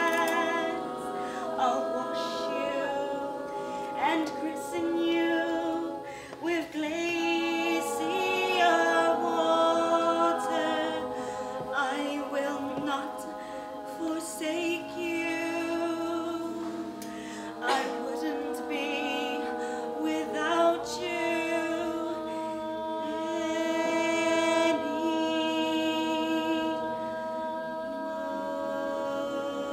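A small ensemble of voices singing a cappella in parts, holding long notes with vibrato.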